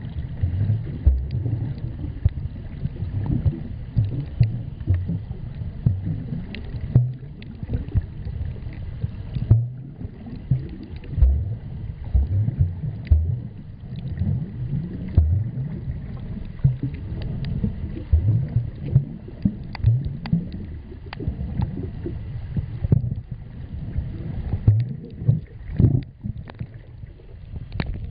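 Muffled, irregular low rumbling and sloshing of water against a camera filming underwater.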